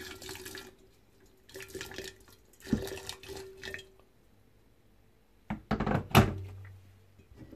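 Boiling water poured from an electric kettle into an empty glass jar in a stainless-steel sink, splashing in three short spurts as the jar is scalded clean. About two seconds after the pouring stops comes a loud clatter of knocks.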